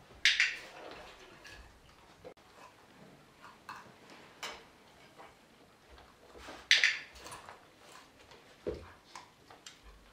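Scattered short clicks and light knocks at an irregular pace, with two louder sharp clicks, one just after the start and one about two-thirds through.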